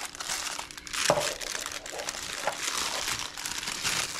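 A plastic seasoning packet crinkling as it is handled, with one sharp click about a second in.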